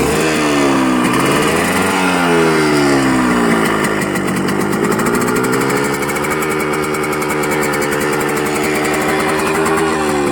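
1989 Yamaha RX100's two-stroke single-cylinder engine running in neutral with its stock silencer fitted. It is revved and let fall back a couple of times, then runs steadily.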